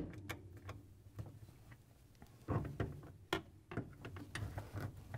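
Quarter-inch nut driver tightening the icemaker's metal mounting screws into the freezer wall: faint, irregular clicks and knocks.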